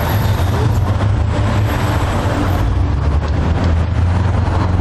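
Steady, loud low rumble of road or tram traffic.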